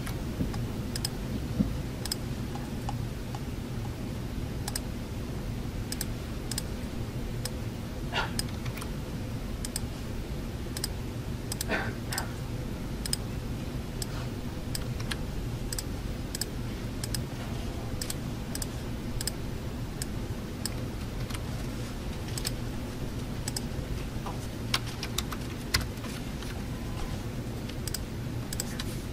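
Computer keyboard typing: irregular runs of light key clicks, several a second, over a steady low hum of ventilation.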